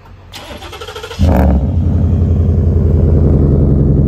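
Ford F-150's 5.0 Coyote V8 cold start: the starter cranks for about a second, then the engine catches with a sudden loud burst and settles into a loud, steady idle through the exhaust.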